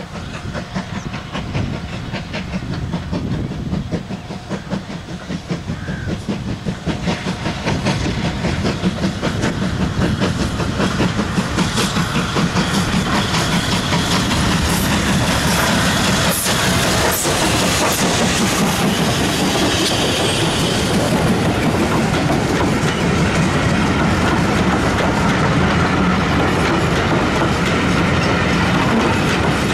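Two GWR steam locomotives, 'Saint' No. 2999 and Modified Hall No. 7903, double-heading a train past at speed. The locomotives' running and the wheel clatter grow louder over the first ten seconds or so. The coaches then roll by with a steady clickety-clack over the rail joints.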